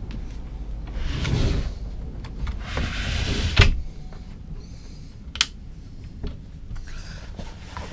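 A sliding door is run along its track twice with a rubbing sound, and the second slide ends in a sharp knock. A lighter click follows a couple of seconds later.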